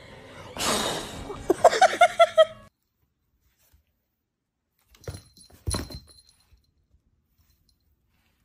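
A person blows a long puff of air, then laughs in five or six short, high bursts. A couple of brief soft knocks follow about five to six seconds in.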